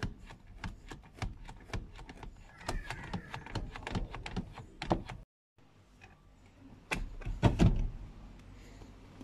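Manual seat-adjuster lever on a 2010 Kia Forte SX driver's seat being worked, its ratchet clicking about three times a second. After a brief break, a few louder knocks follow as the seat mechanism shifts.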